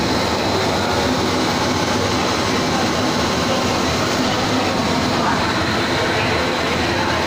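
LD polyethylene blown film extrusion line running: a steady, dense machine noise with a thin, steady high whine over it.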